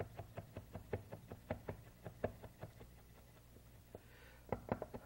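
Knife chopping breakfast sausage on a wooden cutting board: light, quick knocks of the blade on the board, about four a second, thinning out for a moment and picking up faster near the end.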